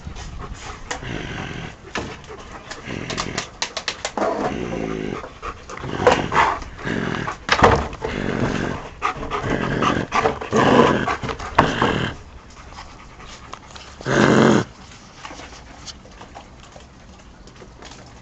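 Dogs growling and barking in short bursts, with one loud, longer cry about fourteen seconds in, after which it goes quieter.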